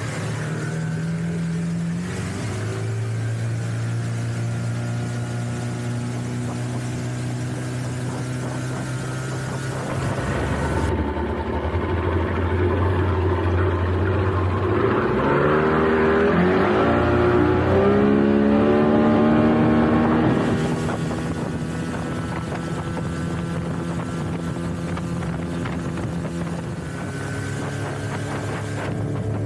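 1996 Force 120 HP inline four-cylinder two-stroke outboard running under way at speed, with the rush of water and prop wash under it. Its note dips and climbs back about halfway through, and it is loudest just after that before easing off.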